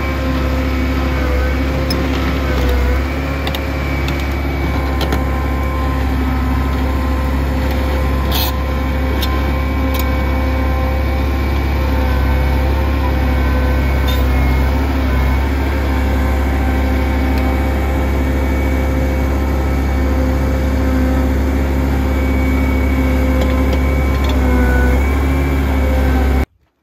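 Diesel engine of a tracked loader running steadily, with a couple of sharp clicks partway through. The sound cuts off suddenly near the end.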